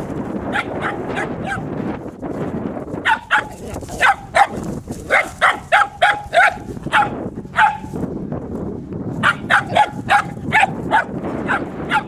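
Three-month-old puppy barking in quick runs of short, high barks, several a second, broken by brief pauses, over a steady background rumble.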